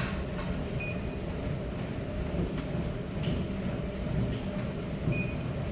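Steady low rumble of a moving vehicle, with a few faint clicks and two short high beeps, one about a second in and one near the end.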